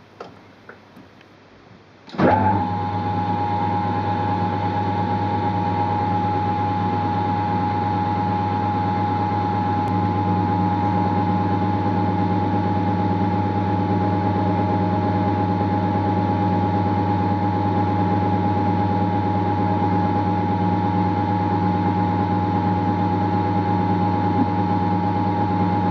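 A metal lathe starts up about two seconds in and runs steadily, with a low hum and a high steady whine from its motor and drive, as it spins the spindle shaft for drilling out.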